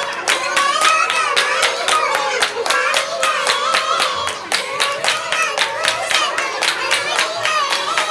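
A group of women clapping their hands in a steady rhythm while singing together.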